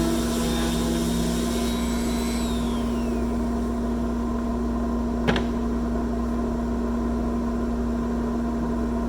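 Shop dust collector running steadily with a strong hum, switched on automatically by an electric sander. The sander's high whine winds down and falls away about two and a half seconds in. A single sharp click comes about five seconds in while the collector keeps running.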